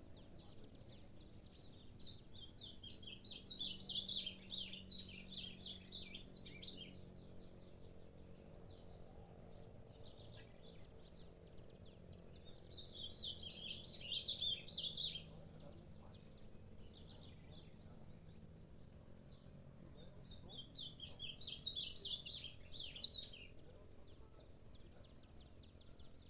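Saffron finch singing: three separate bursts of rapid, high chirping notes, each about three seconds long, with pauses of several seconds between them; the last burst, near the end, is the loudest.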